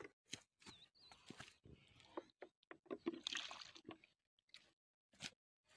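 Faint, irregular splashing and squelching in a shallow muddy puddle, a string of short separate sloshes, busiest a little past the middle.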